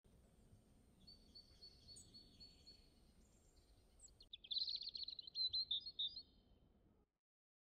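Birds chirping: a thin, high repeated call, then a louder, rapid warbling trill about four and a half seconds in, over a faint background hiss. The sound cuts off abruptly near the end.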